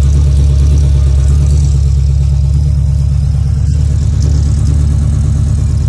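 1997 Chevrolet C3500's 5.7-litre V8 idling steadily, heard at the tailpipe of its newly redone exhaust as an even, low-pitched pulsing rumble.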